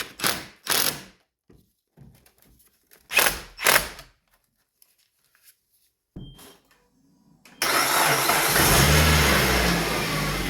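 A few knocks and clunks, then about seven and a half seconds in the Suzuki SX4's 2.0-litre four-cylinder engine suddenly starts and keeps running steadily. This is the first start after a tune-up, on an old battery.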